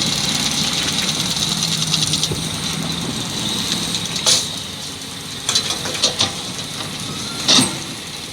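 Heavy diesel machinery running steadily at low revs, with four or five sharp knocks from about halfway in, the loudest near the end.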